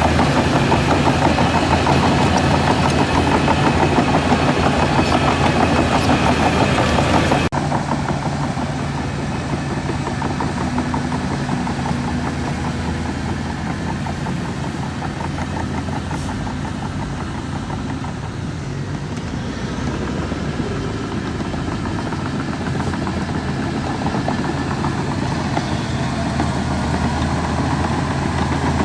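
Heavy diesel machinery engine running steadily at a low, even speed. The sound drops abruptly and a little quieter about seven seconds in, then carries on running.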